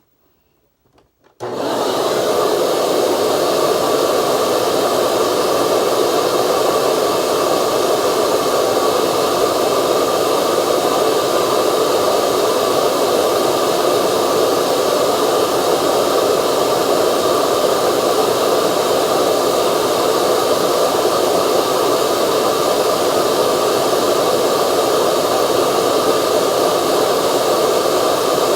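Hoover upright vacuum cleaner motor switched on about a second and a half in and running steadily at full speed, while a commutator stone is held to its spinning motor shaft to polish it.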